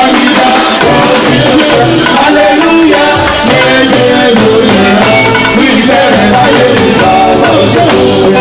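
Loud live band music with a man singing into a microphone, continuous throughout.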